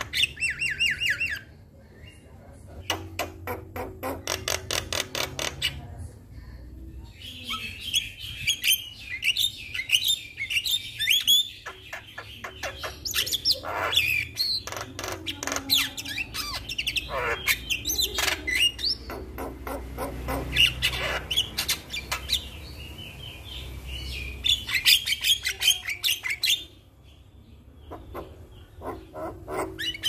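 Javan myna singing a long, varied song of rapid clicking chatter, squawks and whistled notes, with short pauses about two and six seconds in and a longer lull near the end.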